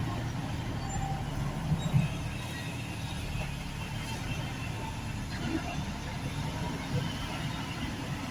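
Diesel engine of a loader running steadily under work, swelling briefly about two seconds in.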